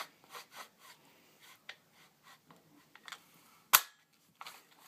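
Plastic handling clicks and rattles from an M16 airsoft rifle being worked by hand while a magazine is loaded, with one loud, sharp click a little under four seconds in.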